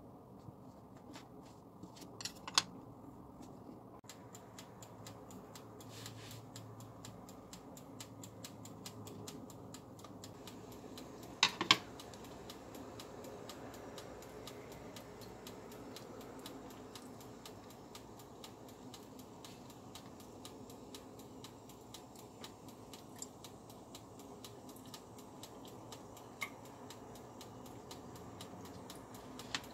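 Kitchen handling sounds over a faint steady room hum: a few sharp clicks and clacks, the loudest a quick double clack about twelve seconds in.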